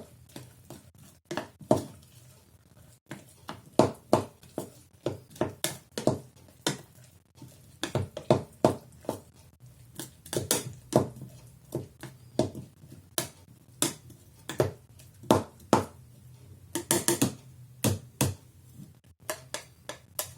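A utensil knocking and scraping against a small jar in many irregular sharp clicks as chopped onion and honey are stirred together.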